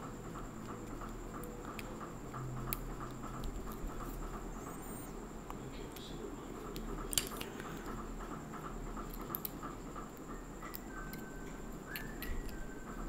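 Small clicks, taps and scratchy handling sounds of tools and parts being worked on inside an opened iPod Classic, the sharpest click about seven seconds in, over a steady faint background hum.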